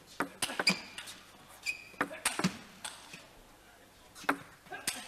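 Table tennis ball clicking in a few scattered, irregular taps, with a short squeak of a shoe on the court floor about a second and a half in.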